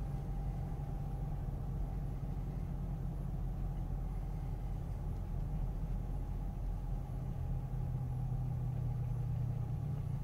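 Chrysler 300S 5.7-litre Hemi V8 with resonators deleted and Magnaflow mufflers, heard from inside the cabin as a steady low exhaust drone while the car cruises slowly at low revs.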